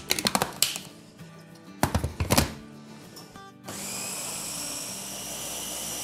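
Plastic clicks and clatter as the motor top is fitted onto an electric mini chopper. About three and a half seconds in, the chopper's motor starts and runs steadily with a high whine, grinding soaked chana dal into a coarse paste.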